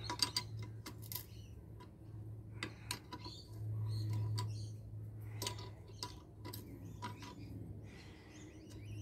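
Size 14 steel spanner and nuts on a pump's bolted top plate clinking as the nuts are undone: irregular light metallic clicks and ticks, some ringing briefly, over a steady low hum.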